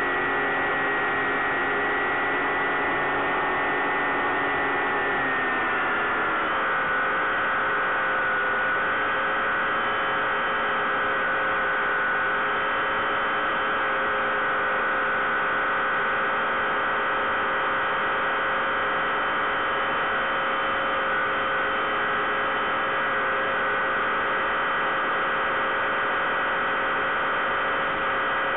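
Bixler 3 RC plane's electric motor and pusher propeller humming steadily in flight. The pitch drops about six seconds in as the motor slows, then holds steady.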